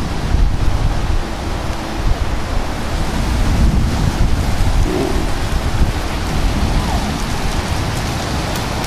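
Strong thunderstorm wind gusts, about 45 mph, blowing across the microphone: a loud, low, rushing noise that swells and eases with the gusts.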